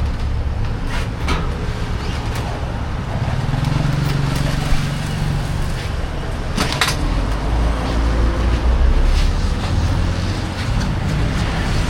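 Street traffic: a steady low rumble of passing motor vehicles, with a couple of brief clicks partway through.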